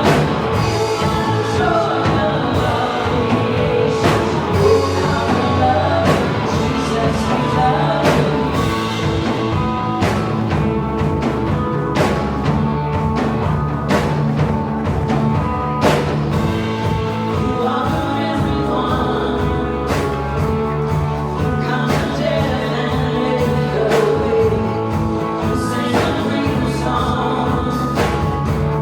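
Church praise band playing a rock-style worship song live, with singing over the band and regular percussive hits about every two seconds.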